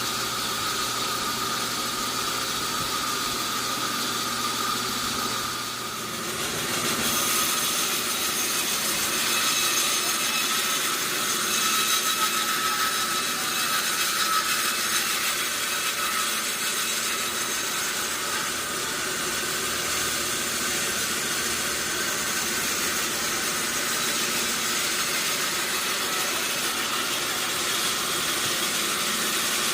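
Sawmill machinery running steadily, a mechanical noise with a faint whine, dipping briefly then coming back louder and brighter about seven seconds in.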